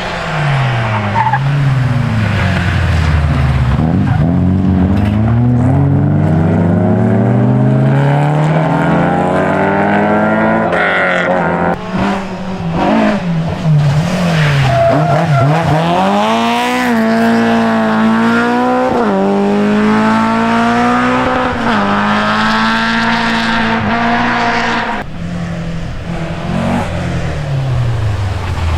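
Rally car engine at stage pace, revs climbing through the gears and dropping sharply on lift-offs and shifts, with tyres squealing and skidding as the car slides through corners.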